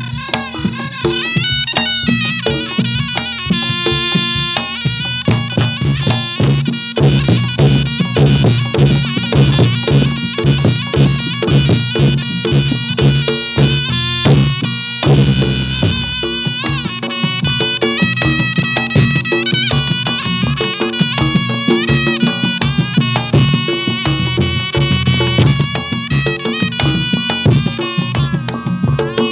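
Reog Ponorogo gamelan music accompanying a jathilan dance. A slompret shawm plays a wavering, reedy melody over a steady beat of kendang drums and gong-chime strikes.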